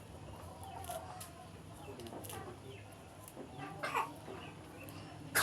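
Chickens clucking faintly: a few short, scattered calls, the loudest about four seconds in.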